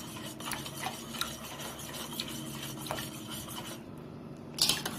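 A metal spoon whisks spinach and cucumber juice in a steel bowl, scraping and clinking against the sides as black salt is stirred in to dissolve. The stirring lulls briefly near the end, then comes a louder clatter.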